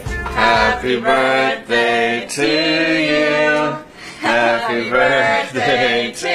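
A young man singing unaccompanied, in phrases with long held notes, with a low rumble under the first second.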